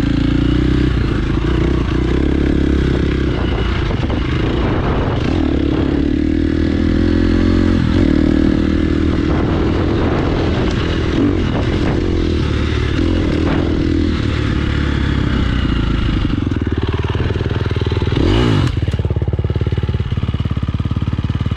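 Dirt bike engine running hard on a trail, the revs rising and falling continuously as it is ridden; about 18 seconds in the revs drop sharply and climb again.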